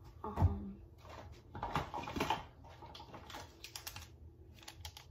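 Small objects being handled and rummaged through: a knock about half a second in, then rustling and a scatter of small clicks and taps.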